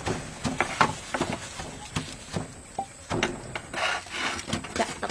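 Wooden pestle pounding and scraping shredded green papaya salad in a clay mortar: irregular wooden knocks about twice a second, with rasping rubs between them.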